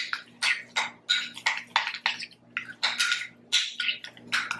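A fork mashing ripe avocado in a bowl: a steady run of short scrapes and taps, about three a second.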